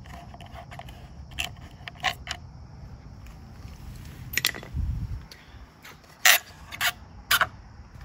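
Scattered sharp plastic clicks and taps as the old Chamberlain wireless garage door keypad is handled and its single retaining screw taken out, with a dull bump about five seconds in and the loudest clicks near the end.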